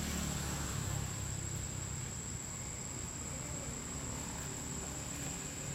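Insects chirring outdoors: one steady, high-pitched drone over a low rumble of background noise.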